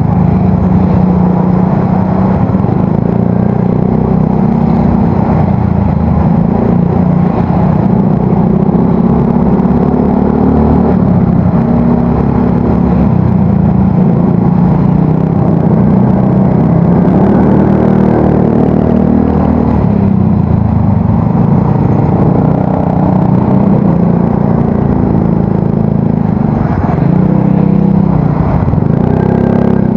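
Yamaha Mio Soul GT scooter's single-cylinder engine running through an aftermarket exhaust at varying low throttle in slow traffic, with a deep, bassy note.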